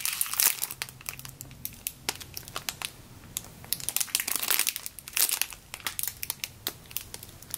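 Clear plastic packaging bag crinkling in irregular bursts of crackles as hands turn and squeeze a squishy bun toy sealed inside it.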